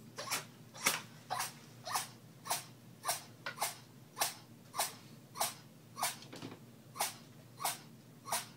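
A cat sneezing over and over in a rapid series, about fifteen short sharp sneezes a little over half a second apart.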